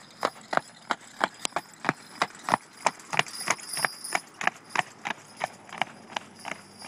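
Percheron draft horse trotting on a paved lane: hooves clip-clopping in a quick, even rhythm, about three to four strikes a second.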